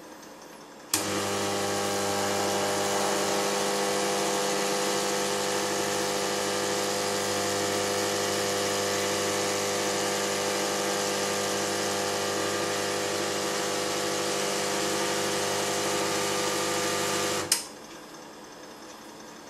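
Calcomp 565 drum plotter's stepper motors running, a steady even whirring hum at one pitch. It starts with a sharp click about a second in and stops with another click shortly before the end.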